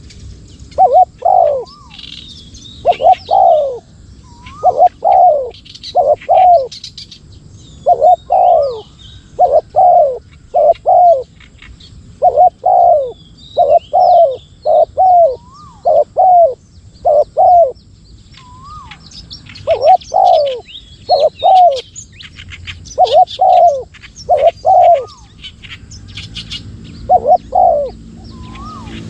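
Spotted doves cooing: loud phrases of two or three short coos, repeated every second or two. Thin chirps of smaller birds sound higher up.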